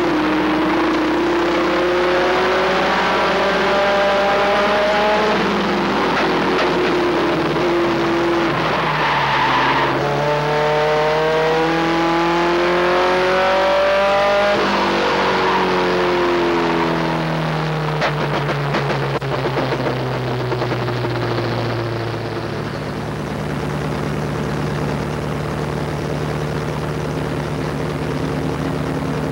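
A race truck's engine heard from inside its cab. It climbs in pitch twice under acceleration and falls off between, then runs steadily at lower revs for the last third.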